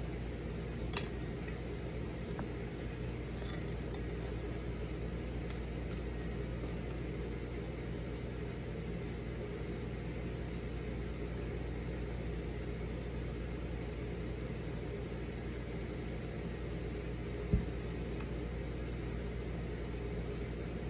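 Steady low background hum of room noise, with a short click about a second in and a dull low thump near the end.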